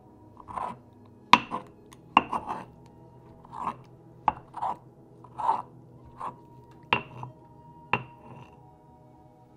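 Stone pestle (tejolote) crushing skinned tomatoes in a stone molcajete. Wet squishing strokes come irregularly, about one or two a second, and several land as sharp stone-on-stone knocks; the loudest is a little over a second in.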